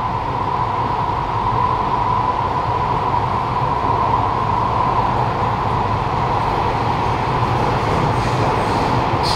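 Kawasaki Nippon Sharyo C751B metro train running through a tunnel, heard inside the carriage: steady rumble and rolling noise with a steady hum. Faint high squeaks begin near the end.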